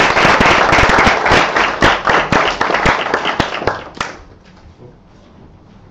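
Audience applauding, then dying away about four seconds in.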